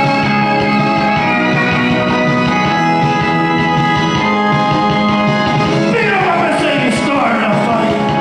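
Music from a live parody song performance: long held chords, then about six seconds in several pitches slide downward together.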